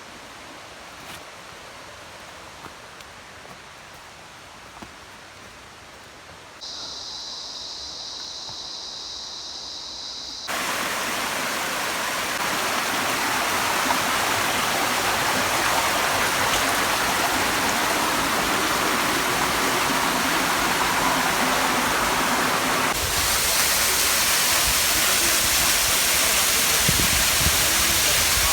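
Rushing water of a rainforest stream or waterfall, which comes in abruptly about ten seconds in and gets louder again in a step near the end. Before it there is quieter forest ambience with a few faint clicks, and then a steady high-pitched buzz for about four seconds.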